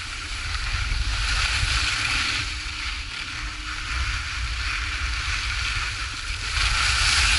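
Skis sliding and scraping over packed, groomed snow at speed, with wind rumbling on the microphone. The scraping hiss swells about two seconds in and again near the end.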